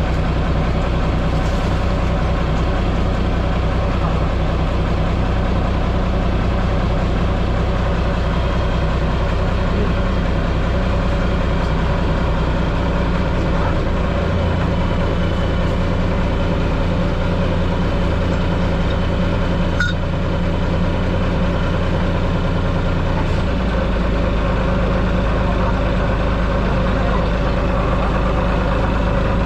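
A fishing boat's engine running steadily with a deep, even drone; the lowest part of the hum shifts about halfway through and settles back a few seconds later.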